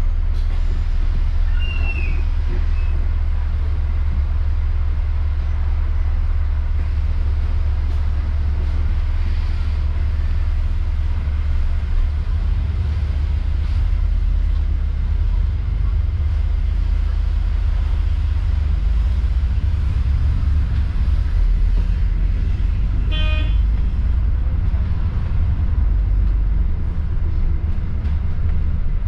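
Steady low engine and road rumble of a moving bus, heard from on board. A single short horn toot sounds about three-quarters of the way through.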